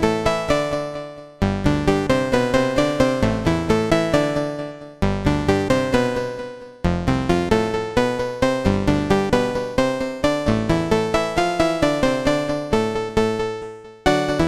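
Roland Boutique D-05 synthesizer playing a keyboard patch: a run of notes and chords, each with a sharp attack that dies away, about three to four a second. The playing restarts after short breaks a few times.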